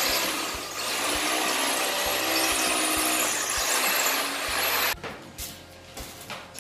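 Corded electric drill boring into concrete, the motor running hard with a brief slowdown about half a second in. It cuts off abruptly a little past two-thirds of the way through, leaving only fainter sounds.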